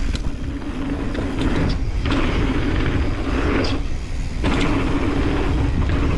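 Mountain bike descending a dirt trail: wind buffeting the microphone, tyres rolling over dirt and rocks, and the bike's frame and chain rattling over bumps.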